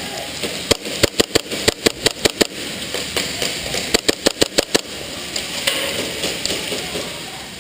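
Airsoft gun shots in two quick strings of sharp cracks, about six a second: roughly a dozen shots beginning just under a second in, then a shorter string of seven or eight about four seconds in.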